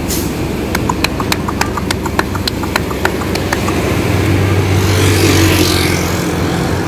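Wooden pigeon crate clicking and knocking as it is handled, a quick irregular run of sharp clicks lasting a few seconds. Then a low rumble with hiss swells and fades about four to six seconds in, a vehicle going by on the road.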